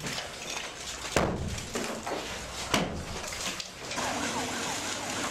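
Sledgehammer blows on a concrete-block wall: two loud, sharp strikes about a second and a half apart. From about four seconds in, a busier demolition din takes over, with people's voices in the background.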